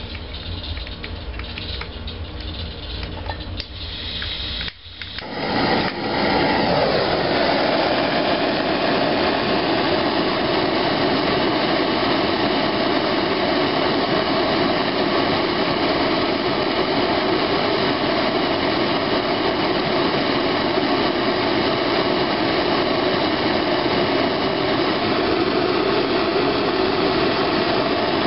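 Handheld gas blowtorch lit about five seconds in, then burning with a steady loud hiss while its flame heats powder in a glass test tube. Before it lights there is only a low hum and a few faint clicks.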